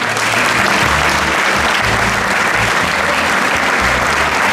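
Large audience applauding steadily, with music and a bass line playing underneath.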